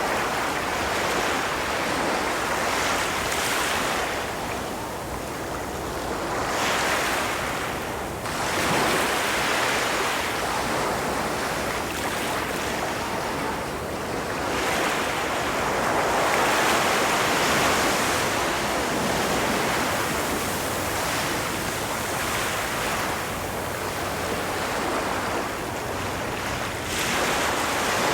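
Ocean surf on a beach: waves breaking and washing up the shore, swelling and fading every few seconds, with some wind.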